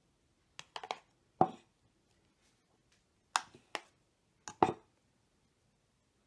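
A metal spoon clinking and scraping against a plastic blender cup and a small glass dish while soft banana ice cream is scooped out. About seven short, sharp clicks come in small clusters, with quiet gaps between.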